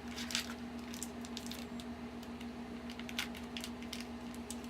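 Small plastic toy packaging being unwrapped and handled: an irregular scatter of clicks and crinkles over a steady low hum.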